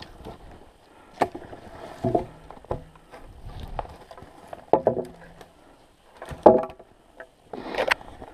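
Footsteps crunching through snow, with branches and twigs rustling underfoot, in uneven steps about a second apart.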